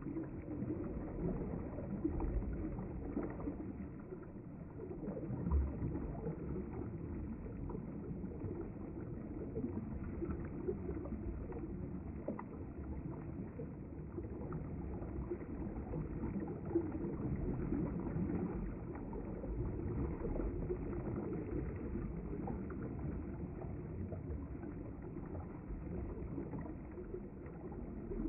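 River water flowing steadily, a continuous low rush with a few small splashes.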